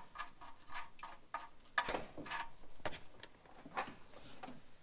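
Faint ticks, about three a second, as the oil drain plug is spun out by hand from the oil pan of a 3.8 L V6. A few louder taps and patter follow as the engine oil starts to run into a plastic drain pan.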